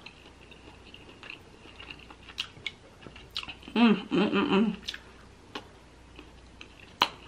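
Close-miked chewing and wet mouth sounds of a person eating seafood boil by hand, with scattered small clicks and smacks. About four seconds in there is a brief hummed "mmm", and a sharp click comes near the end.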